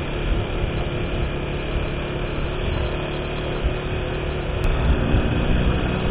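A moving vehicle's engine running steadily under road noise, an even hum with no changes in speed.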